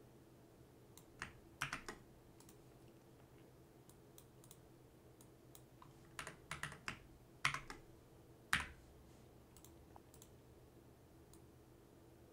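Computer keyboard keys and mouse clicks in a few short, scattered clusters: Ctrl+C / Ctrl+V copy-and-paste shortcuts and clicks between browser tabs. A faint steady hum runs underneath.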